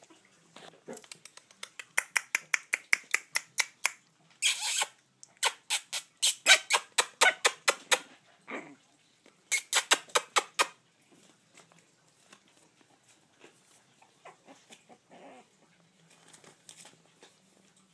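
Young Boston terrier puppies squealing in rapid runs of short, high yips, about five or six a second, with one longer squeal a little over four seconds in. The yipping stops at about eleven seconds, leaving only faint scattered sounds.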